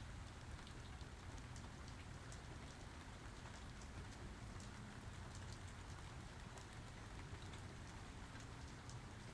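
Steady rainfall with many distinct drop patters, over a low background rumble.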